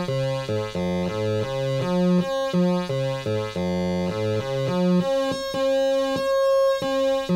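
Atari Punk Console synth, built from two 555 timer chips on a breadboard, sounding through a speaker. A steady higher tone holds throughout, while a lower note jumps between pitches in steps several times a second as its potentiometers are turned.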